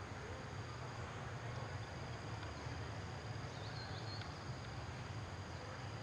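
Steady forest ambience: a continuous high-pitched drone of insects over a low steady rumble, with a few faint high chirps about three and a half seconds in.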